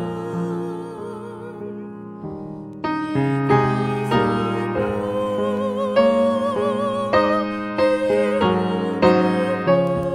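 A woman singing a hymn solo with vibrato, accompanied by piano chords.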